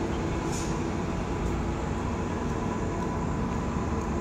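Steady rumble of downtown city street noise, with a faint steady hum running through it.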